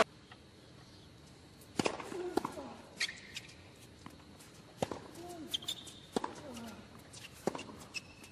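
Tennis rally on a hard court: racket strikes on the ball about every one and a half seconds, with short grunts from the players and shoe squeaks on the court surface.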